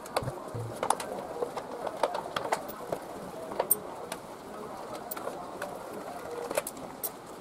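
Screwdriver clicking and scraping against the screws and plastic cooling-fan shroud of a Yamaha Mio Sporty scooter engine as it is unscrewed, in a string of irregular sharp ticks. A dove coos in the background.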